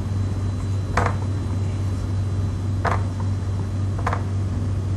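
Marker pen strokes on a whiteboard: three short scrapes, about a second in, near three seconds and about four seconds in, over a steady low hum.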